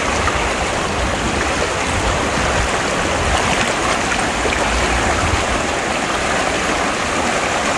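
River water rushing steadily, a continuous even noise of flowing current.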